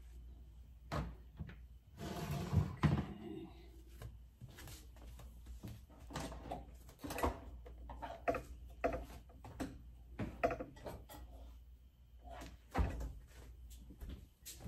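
Kitchen handling sounds: scattered knocks and clatters of doors and items being moved about, with a brief rustle about two seconds in.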